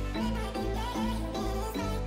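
Background music: a melody over a steady bass line that changes note about every half second.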